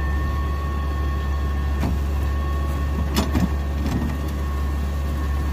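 Tractor-driven Schuler 4510 TMR mixer running with a steady, even drone, with a few short knocks about two and three seconds in.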